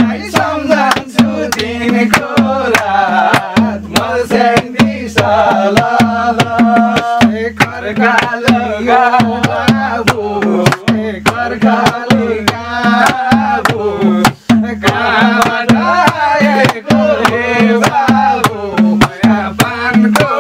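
Madal, the Nepali two-headed hand drum, beaten in a steady rhythm with hand claps, under voices singing a Nepali dohori folk song.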